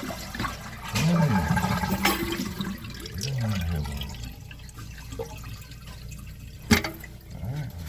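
Toilet flushing, water draining from the tank and bowl, with no refill running because the water supply is shut off. A sharp click comes near the end.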